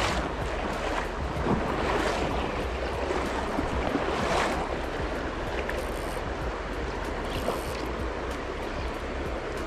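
River water rushing steadily, with a deep rumble and a few brief louder swells of water noise.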